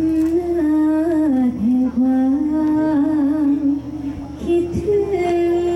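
A solo voice singing a slow, melismatic Thai likay vocal line in long held notes that waver and slide between pitches. It breaks briefly about four seconds in, then resumes on a higher held note.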